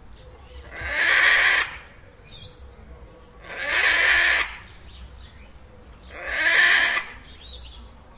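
Macaw squawking: three harsh, loud calls about a second long each, evenly spaced a little over two seconds apart.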